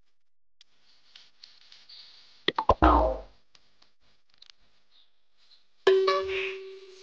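Two added sound effects: about two and a half seconds in, a quick plop made of a few sharp clicks and a falling tone that fades within half a second; near the end, a sudden plucked-sounding musical note that rings out and fades. Faint high ticks come and go between them.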